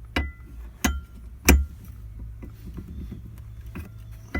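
Three sharp metal clanks, the last one loudest, as a steel wrench rod is worked in the stow 'n go spare-tire winch to break it loose, over a low steady hum.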